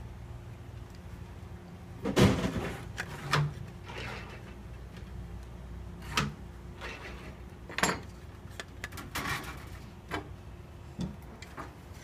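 Irregular knocks and clanks of metal tools and soft copper sheet being handled and worked on a bench, about seven separate strikes with the loudest a little over two seconds in, over a steady low hum.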